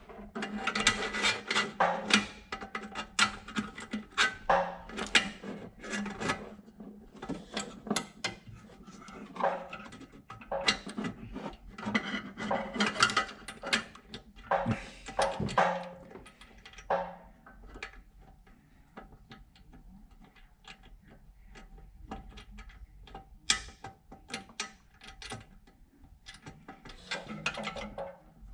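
Irregular metallic clicks, clinks and knocks of hand tools and bolts being worked into a bracket while a valve is fitted, busy for the first half and sparser after.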